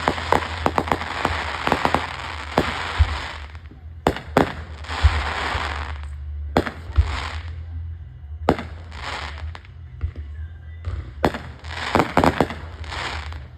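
Fireworks going off: clusters of sharp cracks and bangs with a crackling hiss between them, thinning out mid-way and picking up again near the end.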